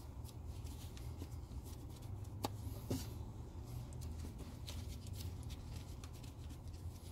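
Work gloves being pulled on: faint rustling with a couple of light clicks partway through, over a steady low rumble.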